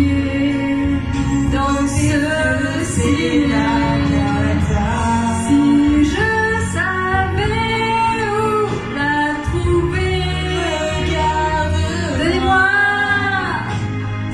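A woman and a man singing a French song into microphones over a backing music track.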